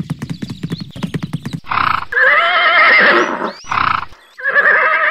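Horse hooves clip-clopping quickly for about a second and a half, then a horse whinnying: one long wavering call, a short burst, and a second call near the end.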